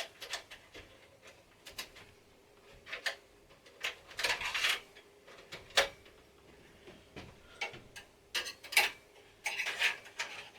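Light metal clicks, taps and short scraping rubs as a PCIe slot cover is worked into place in a desktop PC case, with a longer scrape about four seconds in and another near the end.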